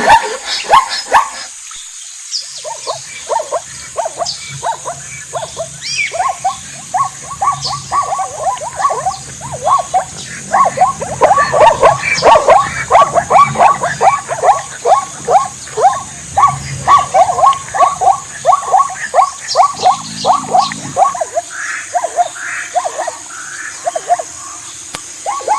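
Many short animal calls repeated rapidly and overlapping, several animals calling at once.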